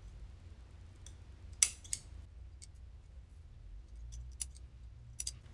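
Scissors snipping into a lace frontal wig, cutting it into sections for tacking down. A few short, sharp snips, with the two loudest about a second and a half to two seconds in.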